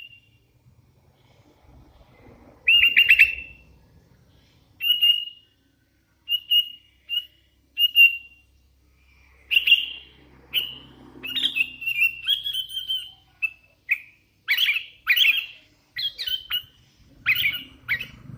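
Young sooty-headed bulbul (kutilang) calling: short chirps, a few spaced out at first, then coming quicker and more varied through the second half.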